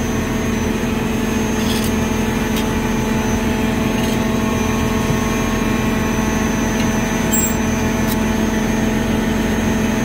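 Steady machinery hum with several fixed tones, unchanging throughout, with a few faint light clicks of parts being handled.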